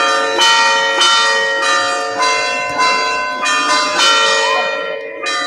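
A peal of church bells: several bells of different pitch struck one after another, about every half second, each ringing on under the next.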